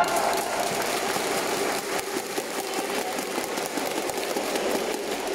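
Spectators applauding after a rally ends, a dense patter of many hands clapping.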